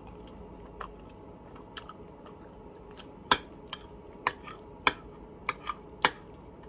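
A person chewing a mouthful of ramen noodles close to the microphone, with a handful of short sharp clicks from about three seconds in, as a spoon and fork touch the plate.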